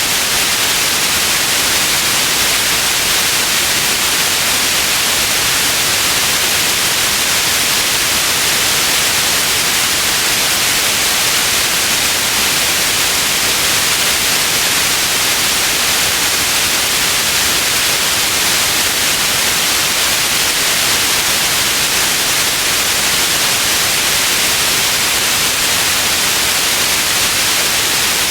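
Steady white noise: an even, unchanging hiss, strongest in the upper range.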